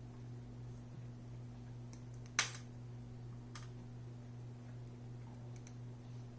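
One sharp click about two and a half seconds in, followed by a couple of faint ticks, from small tools and parts being handled while a laptop screen is screwed back in. A steady low electrical hum runs underneath.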